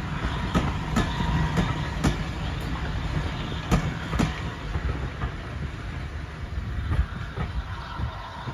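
Flying Scotsman, an LNER A3 steam locomotive, and its train running on the line: a low rumble with irregular sharp clacks of wheels over rail joints, growing gradually quieter.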